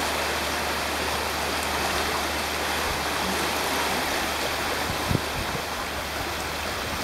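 Floodwater rushing down a street, a steady, even rush of fast-flowing water, with a brief low knock about five seconds in.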